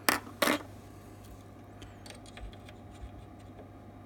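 Two short scratchy rustles about a third of a second apart, then a few faint light clicks, as tools and a reel of solder are handled at a soldering bench. A low steady hum runs underneath.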